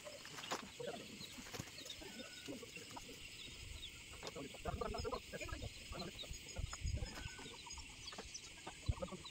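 Chickens clucking, with small birds chirping.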